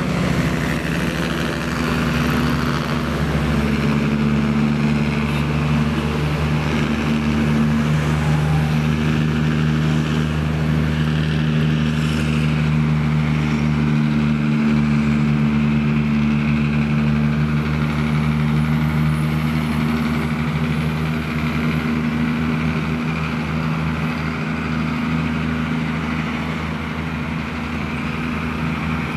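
Heavy truck's diesel engine running steadily at an even pitch.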